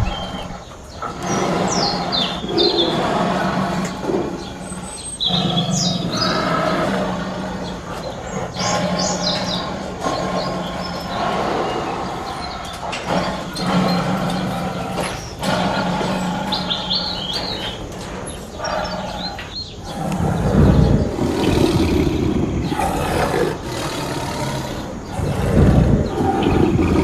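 Jungle ambience sound effect: birds chirping over a steady low drone, then deep animal roars twice in the last seven seconds.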